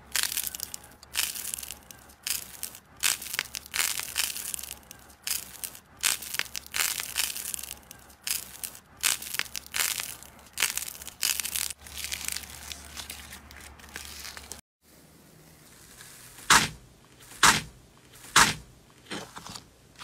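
Small slime-filled stress balls squeezed in the fingers, giving repeated crackling, crunching bursts. After a pause about 15 s in come three sharp, loud snaps about a second apart.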